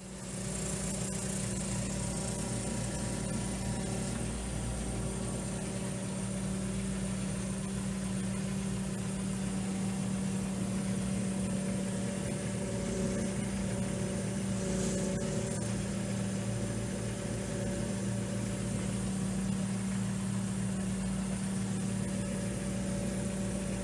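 JCB telehandler's diesel engine running steadily at low revs, heard from inside the cab as the machine crawls along under load, towing a caravan.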